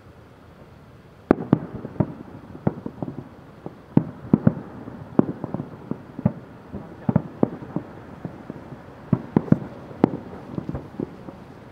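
Aerial fireworks shells bursting in a rapid, irregular series of sharp bangs, starting a little over a second in.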